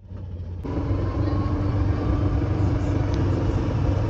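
Golf cart driving along: a steady low rumble of the cart's running gear. It comes in after a short quiet gap at the start.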